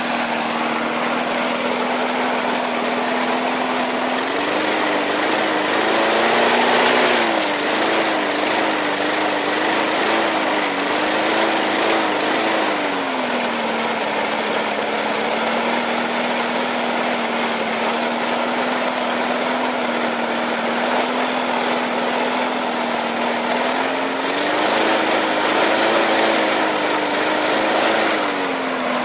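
Small walk-behind lawn mower engine running steadily. About four seconds in its speed picks up and wavers for several seconds before settling, then it picks up again for a few seconds near the end.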